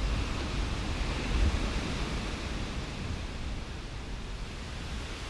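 Steady rushing noise with a low rumble and no tones, slowly fading out.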